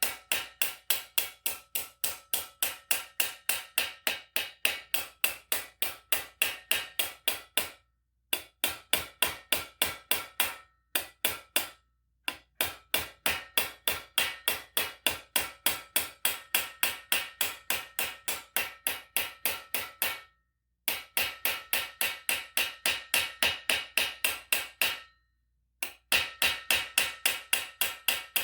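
Hammer with a slightly curved face striking the outside edge of a metal armour plate, about three to four ringing blows a second in runs broken by short pauses. Each blow pushes the metal back in toward the centre to close up a stretched, worn spot in leg armour.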